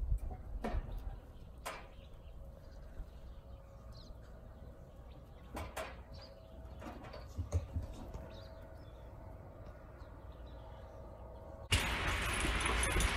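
Great Dane puppies playing in a yard: a faint background with a few scattered light knocks and scuffles. Near the end it switches suddenly to louder rustling and jingling of collar tags as Great Danes wrestle on a bed.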